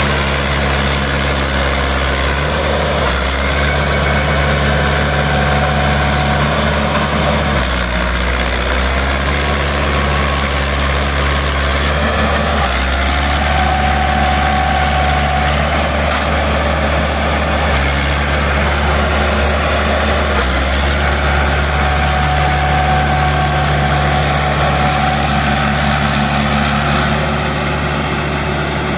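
Mahindra 575 DI tractor's diesel engine running under load as the tractor churns through deep mud, its note rising and falling every few seconds.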